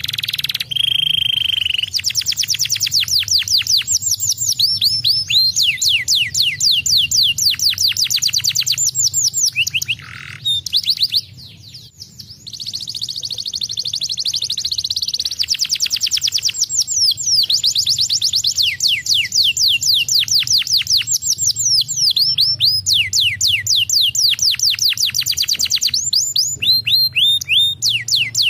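Domestic canary singing: long rolling trills of rapid down-slurred whistled notes, about ten a second, with a short steady whistle near the start and a brief pause in the song about ten seconds in.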